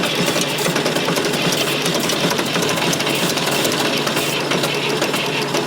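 Fordson Super Major's 3.6-litre diesel being cranked over by its starter motor, turning steadily without catching.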